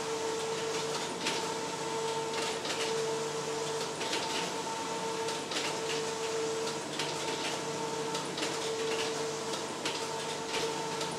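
A steady machine hum holding one constant tone, with scattered clicks and rattles over it.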